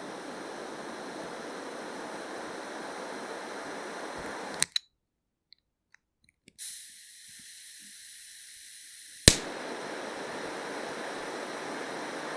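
Cigarette lighter being struck: two sharp clicks a little over four seconds in, then after a moment of dead silence a high hiss for about three seconds, cut off by a loud click. A steady rushing noise fills the rest.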